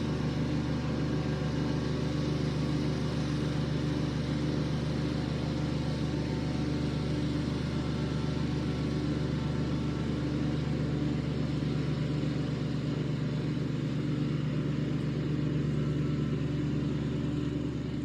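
An engine running steadily at one constant speed, without revving, from a machine being worked moving logs and pulling out small stumps.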